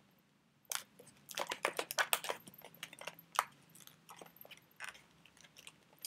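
Latex modelling balloon (a 160) squeaking and creaking in the hands as its pinch-twisted feather clusters are pressed into line: a quick run of short rubbery squeaks starting just under a second in, thinning out in the second half.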